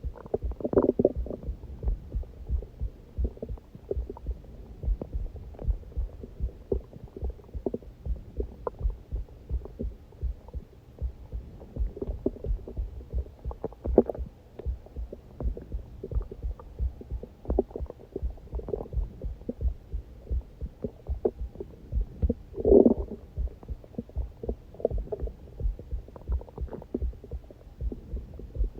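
A human heartbeat heard through the body as a steady run of low thuds, with hungry stomach growls gurgling over it now and then. The loudest growl comes a little past the middle.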